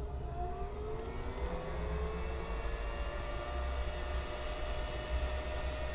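Heat gun running: its motor whir rises in pitch over the first couple of seconds as it comes up to speed, then holds a steady blowing hum.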